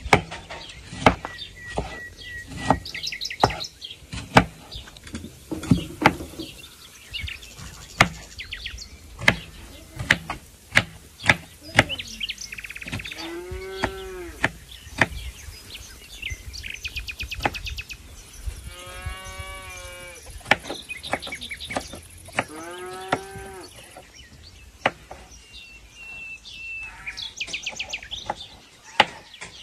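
Kitchen knife cutting tomatoes on a wooden cutting board: repeated sharp knocks of the blade on the board, with small birds chirping and trilling around. A cow moos three times near the middle.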